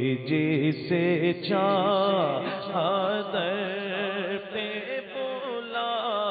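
A man's voice singing a naat unaccompanied into a microphone. He holds a few steady notes, then from about a second and a half in sings a long, wavering, ornamented melodic run without clear words.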